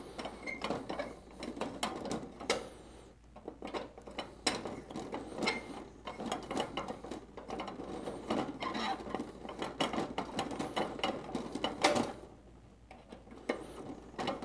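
Needle-nose pliers twisting a drilled-out metal lock piece out of a toy vending machine head's lid: rapid, irregular metallic scraping and clicking, with a short pause near the end.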